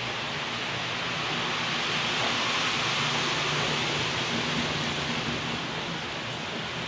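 Model freight train rolling along the layout track: a steady rushing hiss of small wheels on rail with a low motor hum underneath, swelling a little in the middle.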